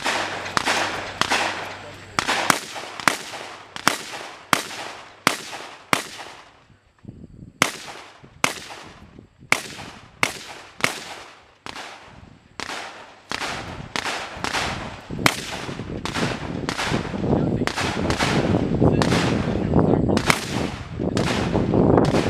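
A string of gunshots from a competitor firing a 3-Gun stage, heard from a distance, about one to two shots a second with two breaks of a second or two. A steady rougher noise builds under the shots in the second half.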